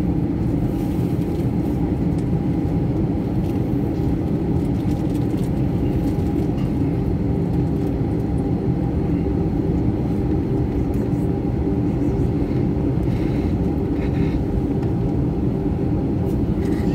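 Steady cabin noise of a jet airliner taxiing, heard from inside the cabin: an even engine hum with a few held tones.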